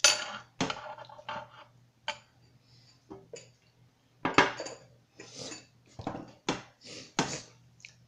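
A spoon clinking and scraping against a cereal bowl in a string of short clatters. The loudest come at the very start and about four and a half seconds in.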